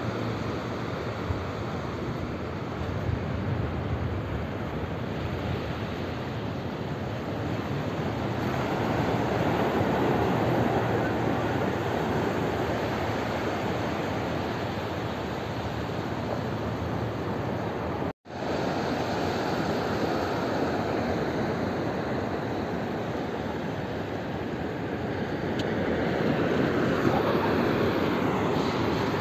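Sea surf washing in on a flat sandy beach: a steady rush of noise that swells louder about a third of the way in and again near the end, cutting out for an instant about two-thirds through.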